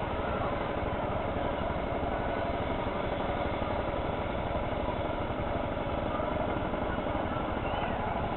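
Small ride motor boat's engine running steadily, heard from on board.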